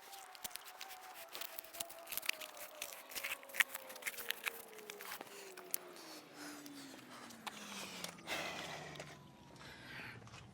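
Cutting out a rubber ribbed floor mat: many irregular snips, clicks and scrapes, with a faint tone slowly falling in pitch throughout.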